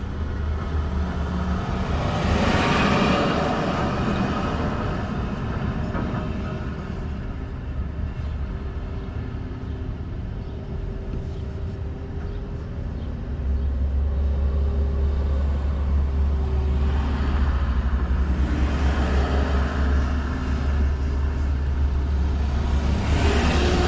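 Vehicle running, a steady low rumble that grows louder a little past halfway, with swells of rushing noise near the start and end.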